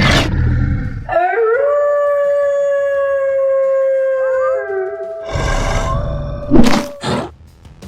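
A long, steady howl with a rising start, then a second, slightly higher held howl, over and between rough, loud roaring noises.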